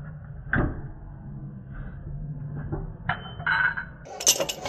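Work on a scooter's brake parts: one sharp knock about half a second in, a couple of short high tones a little past three seconds, and a quick run of metal clinks near the end, over a low steady hum.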